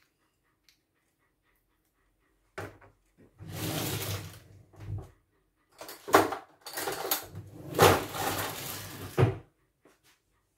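Kitchen drawer slid open and shut, with utensils clattering inside as a spoon is taken out; the sounds begin about two and a half seconds in and come in several loud stretches.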